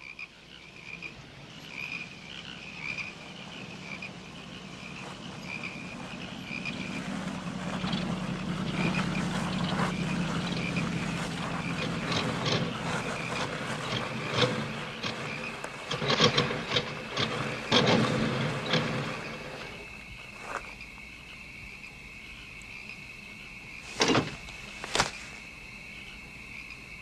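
A chorus of frogs and crickets calling steadily, while a car engine comes closer and grows louder, then sputters and misfires and cuts out about 19 seconds in as the car runs out of gas. About five seconds later come two sharp knocks, a second apart.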